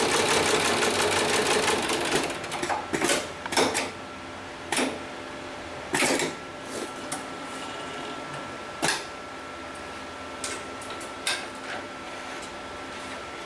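Heavy-duty programmable pattern sewing machine stitching a polyester lifting strap, running steadily and then stopping about two seconds in. After that come scattered separate clicks and knocks as the strap and its metal hooks are handled on the work plate, over a faint steady whine.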